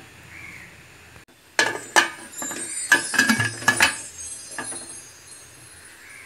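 Metal clinks and knocks of a utensil against an aluminium pressure-cooker pot: a quick cluster of sharp strikes with a ringing tone, starting about one and a half seconds in and ending about four seconds in.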